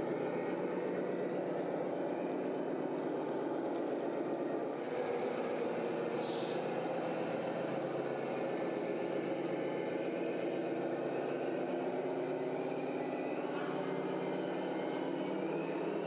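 Radio-controlled model trucks running steadily, a continuous engine-like drone from their motors and sound units.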